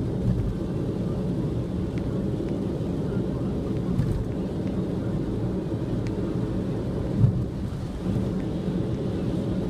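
Car driving on the expressway in a heavy downpour: a steady low rumble of road and rain noise, with a few faint ticks and one short louder knock about seven seconds in.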